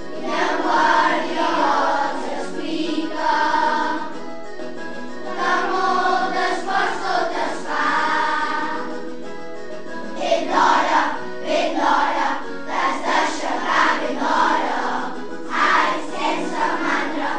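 A children's choir sings a Catalan song in unison over a musical backing. About halfway through, the singing breaks into short, punchy chanted phrases.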